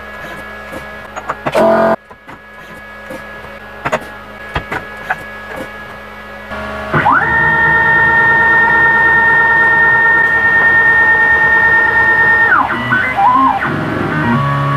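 CNC milling machine: clicks of the tool changer, with a loud clatter about two seconds in as a tool is swapped into the spindle. About seven seconds in, the spindle spins up with a rising whine, holds a steady high whine for about five seconds, then winds down.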